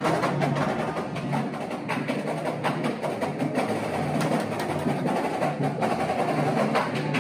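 Marching drums and drumsticks struck in a dense, continuous clatter of many quick hits with no steady beat, with sharp wooden stick clicks among the drum strokes.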